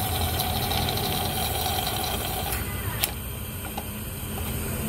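Panasonic inverter air conditioner running with a steady mechanical hum while compressor oil is drawn into it through the suction line. About two and a half seconds in, a steady mid-pitched tone drops out, a sharp click follows, and the rest is quieter.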